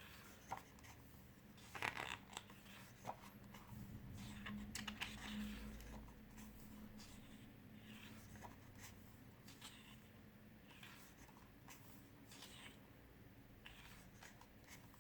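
Faint rustling and soft taps of photobook pages being handled and turned, with a few sharper clicks about two seconds in.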